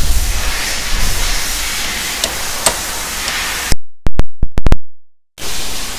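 A hammer striking a 19 mm socket used as a drift, driving the new cap and ring into a Snap-on ratchet head held in a vise: a few light taps, then about five sharp metal strikes in quick succession about four seconds in, over a steady hiss.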